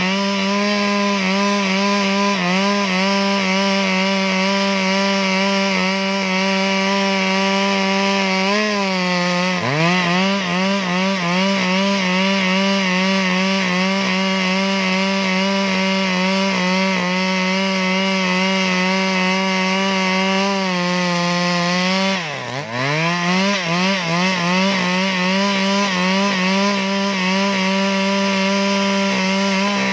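Stihl MS 382 two-stroke chainsaw running at full throttle, ripping lengthwise along a squared log. Its pitch sags and climbs back twice, about nine seconds in and more deeply a little after twenty-two seconds, as the chain loads up in the cut.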